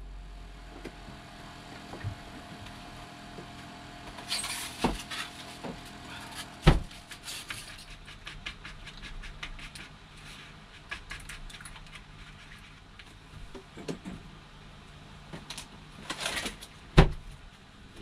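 Household handling sounds inside a small camper: light clicks and clatter of items being picked up and set down, short rustling bursts about 4 s and 16 s in, and two sharp knocks, one about 7 s in and the loudest near the end.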